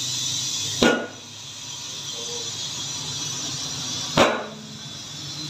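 Compressed air hissing into a car tyre through a clip-on inflator chuck. Two sharp pops cut in, about a second in and again near the end, the tyre beads seating on the rim as it fills.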